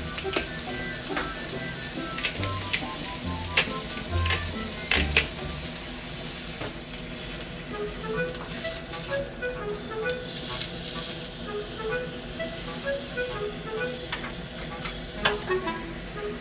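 Beef and vegetables sizzling steadily in a small iron frying pan, with a few sharp clicks in the first five seconds and again near the end.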